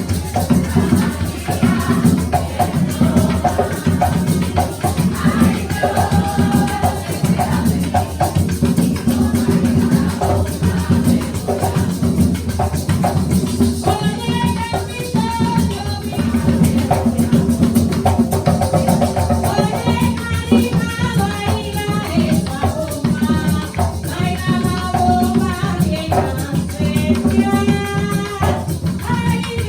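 Music with a dense, steady percussion rhythm and a voice singing over it, the singing clearer from about halfway.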